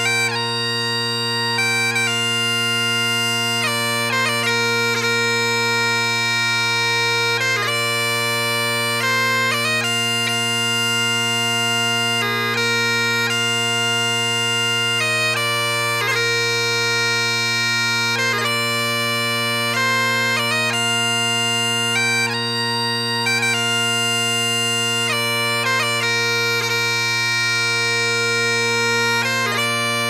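Great Highland bagpipe playing a slow tune over its steady drones, the chanter moving from note to note every second or two.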